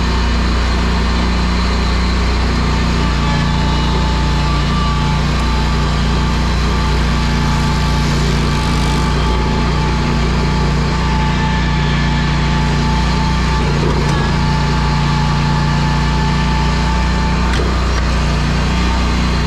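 Scag Tiger Cat zero-turn mower's engine running steadily at a constant speed as the mower is driven, heard up close from the seat.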